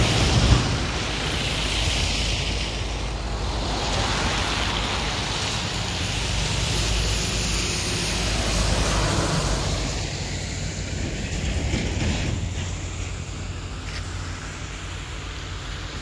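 Gusty cyclone wind buffeting the microphone, a deep rumble over a steady hiss of rain. It eases somewhat over the last few seconds.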